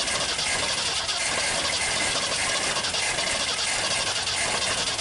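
A Ford 390 FE V8 cranking steadily on its starter without firing, then cutting off suddenly near the end. It will not catch because its Holley 750 four-barrel carburettor is clogged with gunk and the accelerator pump squirters are not spraying fuel.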